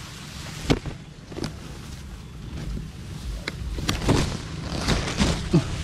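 Scattered rustles and light knocks from hands working cord and a net-trap frame among bamboo leaves, growing busier in the last two seconds, over a steady low rumble.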